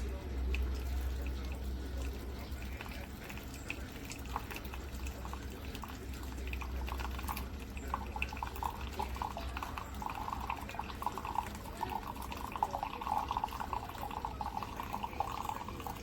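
Keurig K-Brew+Chill single-serve coffee maker dispensing into a cup. Scattered drips start about four seconds in, then a stream of liquid filling the cup grows louder from about halfway.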